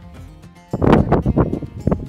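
Soft background music, then about two-thirds of a second in, loud gusty wind buffeting the microphone.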